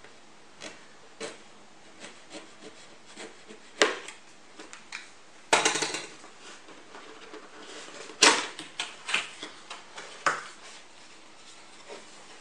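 A cardboard processor box being slit open with a utility knife and its flaps opened by hand: scattered clicks, taps and scrapes of knife and cardboard. There is a dense rasp of cardboard about halfway through and sharp snaps near four, eight and ten seconds in.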